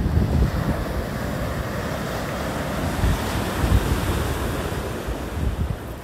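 Atlantic Ocean surf breaking on the beach: the wash of a wave swells and then eases off near the end, over low buffeting of wind on the microphone.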